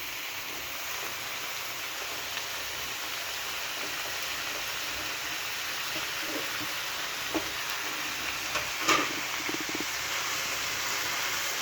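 Chicken pieces frying in hot oil in a pan with onions and bell peppers, a steady sizzle over medium-high heat. A few faint clicks come in the later part.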